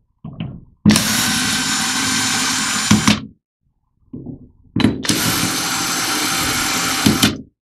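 Power screwdriver running in two steady bursts of about two and a half seconds each, with a short pause between, backing out the screws that hold the valve block on.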